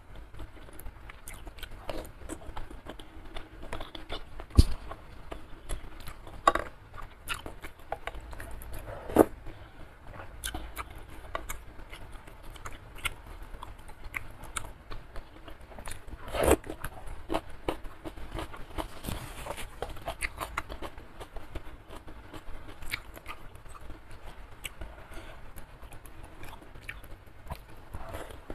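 Close-miked chewing and biting of spicy curry instant noodles with chewy beef skin and beef meatballs: continuous wet mouth sounds with many small clicks and a few louder sharp ones scattered through.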